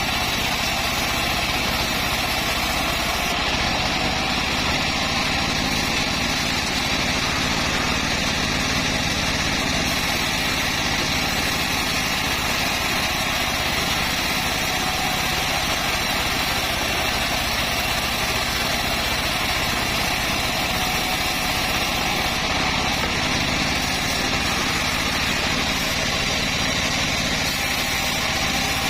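Homemade bandsaw sawmill running steadily, its engine giving an unbroken, even drone.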